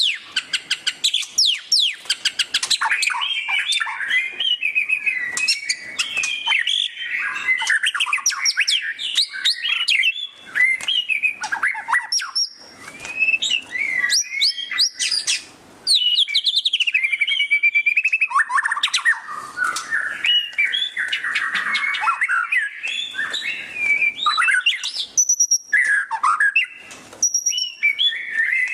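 White-rumped shama (murai batu) singing loudly in the fast chattering 'ngeriwik' style: a nearly unbroken stream of quick whistles, rapid trills and chattering notes that jump in pitch, with only a few brief pauses.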